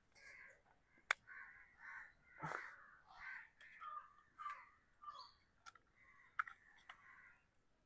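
Faint bird calls repeating irregularly in the background. A sharp click about a second in, and a few lighter clicks near the end, as the Grenaro S13 Pro wireless-mic charging case is opened and handled.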